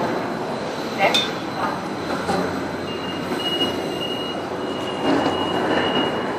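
Light rail train running close by: a steady noise with a thin high whine that sets in about halfway through and holds.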